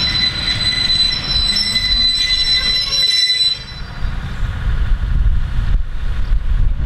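Railway coaches rolling past with their wheels squealing in high steady tones. The squeal fades out about halfway through, leaving a low rumble of wheels on rail.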